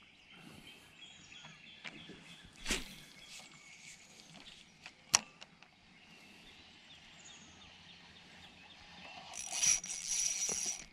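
Mostly quiet outdoor air with a few light knocks. Near the end a spinning fishing reel whirs for about a second and a half as a fish is hooked and the line comes tight.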